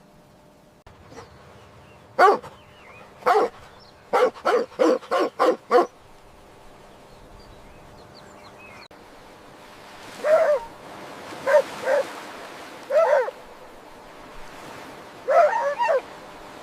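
A dog barking: two single barks, then a quick run of about seven, then after a pause a few more spaced barks, some in quick pairs.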